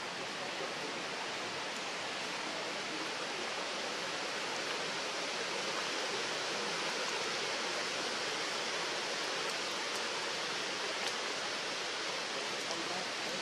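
Steady, even rushing hiss with no distinct events, like running water, and a few faint ticks.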